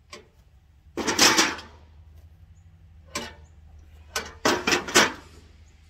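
25 lb barbell weight plates clanking as they are set down on the steel weight tray of a tow-behind lawn aerator and on each other: a light clank at the start, a longer clattering clank about a second in, another near the middle, then four quick clanks near the end.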